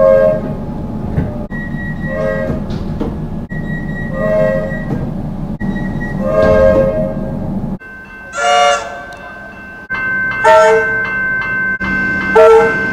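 Horns of Comeng electric trains sounding, a string of short blasts cut together one after another about every two seconds, over the steady hum of the trains.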